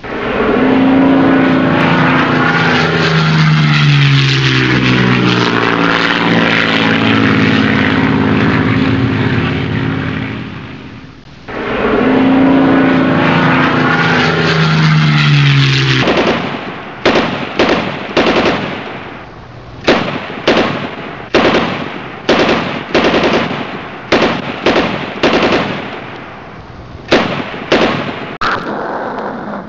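Propeller engines of WWI biplanes running loud, their pitch dropping slowly as they pass, twice; then, from a little past halfway, a run of sharp gunfire bangs roughly one a second.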